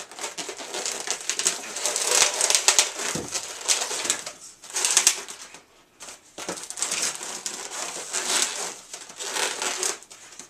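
Latex modelling balloons squeaking and rubbing against each other as they are twisted and handled, a dense run of crinkly squeaks with a short lull about five to six seconds in.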